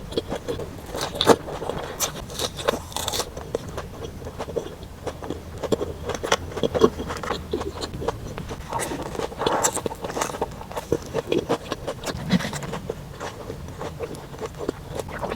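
Close-miked eating sounds: biting and chewing, with many short clicks and scrapes.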